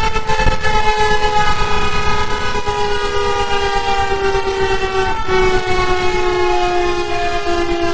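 Fire apparatus siren sounding en route, one long continuous tone that slowly falls in pitch, with a slight step in pitch about five seconds in.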